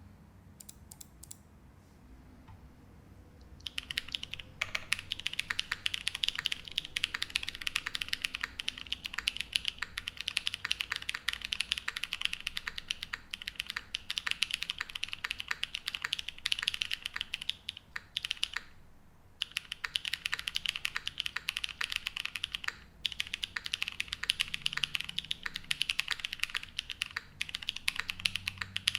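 Fast, continuous typing on a Midway60 custom mechanical keyboard with stock Laguna Blue linear switches, a full polycarbonate plate and GMK keycaps. It begins about four seconds in, after a few faint clicks, and breaks off briefly twice.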